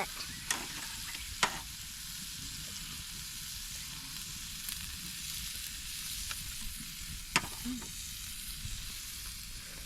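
Food sizzling steadily, with a few sharp clicks.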